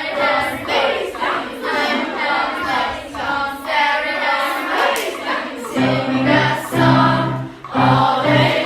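A group of voices singing a song together like a choir, with deeper, pulsing low notes joining about six seconds in.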